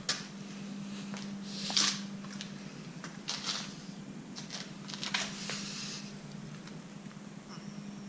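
Handling noise from a hand-held camera being moved around a bicycle: scattered short rustles and scuffs, the strongest about two, three and a half and five seconds in, over a steady low hum.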